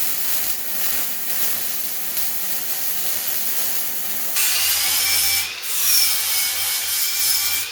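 Power tool working steel: a steady grinding hiss, joined about halfway through by a louder run with a faint motor whine.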